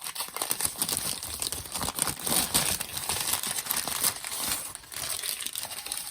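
Packaging around a crystal being unwrapped by hand: continuous crinkling and rustling, with a rapid run of small crackles.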